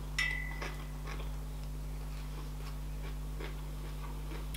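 Close-miked chewing of a mouthful of sushi: soft, wet mouth clicks, with a brief high squeak just after the start, over a steady low hum.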